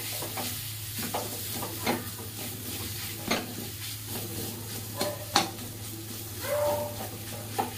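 A spatula scrapes and knocks irregularly against a kadai as it stirs and turns a thick onion-tomato masala paste. The paste sizzles softly as it fries down (bhuna) in the oil.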